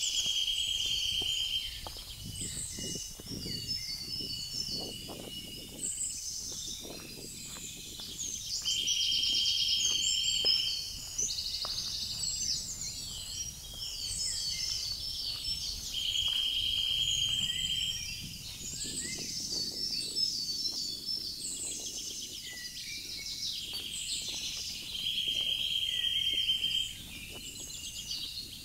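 Woodland birdsong: several songbirds singing over one another, with one loud, dry, buzzing trill coming back several times, each time for about two seconds.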